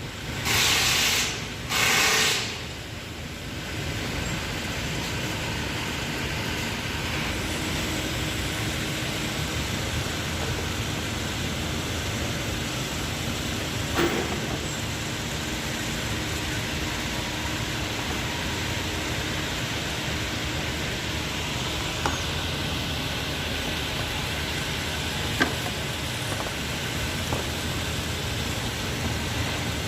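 Toyota Camry engine idling steadily, in a car brought in for a misfire. Two short hissing blasts come in the first two seconds, and a few sharp clicks come later.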